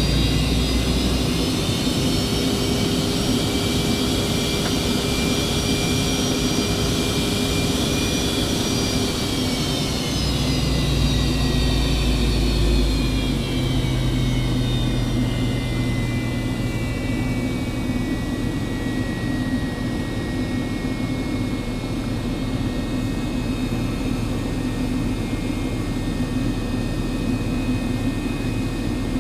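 The McDonnell Douglas MD-88's rear-mounted Pratt & Whitney JT8D turbofans, heard from inside the cabin: a steady rush with a multi-tone whine that drifts down in pitch from about eight to twenty seconds in as the engines spool down, then holds steady.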